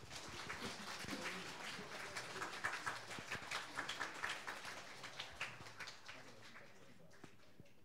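Faint scattered applause from a small audience, swelling over the first few seconds and dying away near the end.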